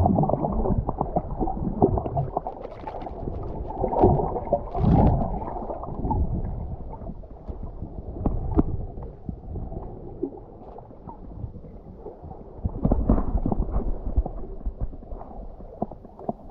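Muffled sea water gurgling and sloshing around the microphone underwater, swelling and easing, with scattered small clicks and knocks and louder surges partway through and near the end.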